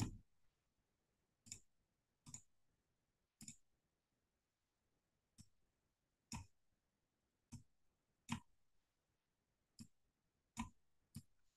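About a dozen short, sharp clicks at irregular intervals of roughly a second, over near silence: clicking at a computer.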